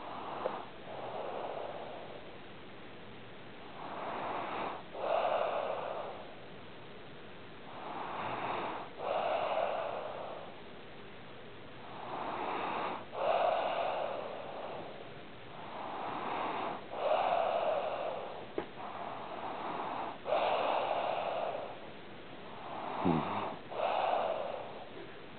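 A sleeping pet snoring: a slow, regular rhythm of noisy snoring breaths, about seven in all, each in two parts with a short break between them.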